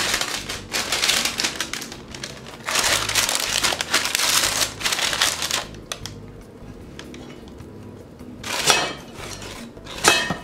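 Parchment paper crinkling and rustling as a loaf of dough on it is lowered into a preheated cast-iron Dutch oven, then the heavy cast-iron lid scraping and clanking onto the pot twice near the end.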